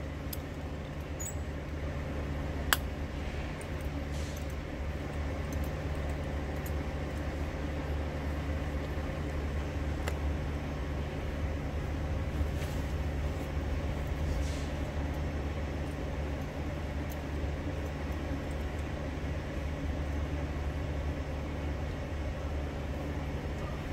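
Diesel truck engine idling, a steady low drone, with a sharp metallic click of hand tools about three seconds in.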